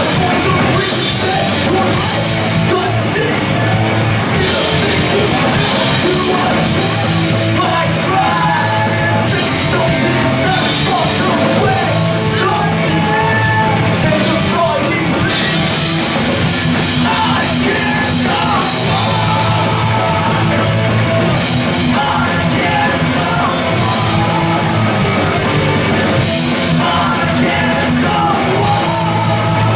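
Punk band playing live: electric guitars, bass and drums, with a singer yelling the vocals into the microphone.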